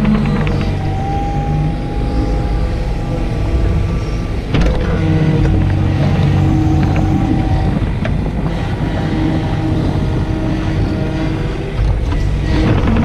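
Takeuchi TB125 mini excavator's diesel engine running under load, with a hydraulic whine that comes and goes as the boom and thumb grab lower a log and lift it again. A single clunk about four and a half seconds in.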